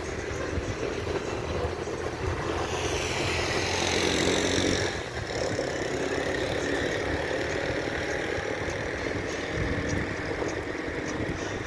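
Car travelling along a road at night: steady engine and tyre noise. A louder swell rises and then falls away about three to five seconds in, like a vehicle passing close by.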